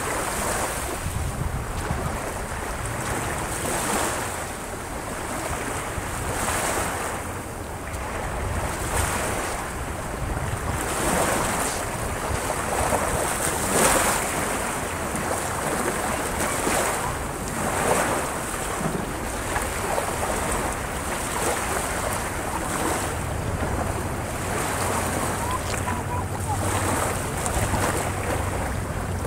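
Small waves breaking and washing up on the shore, a fresh surge every two to three seconds, with wind rumbling on the microphone.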